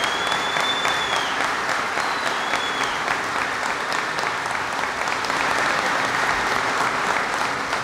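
Large audience applauding steadily, with a couple of high rising-and-falling whistles in the first three seconds.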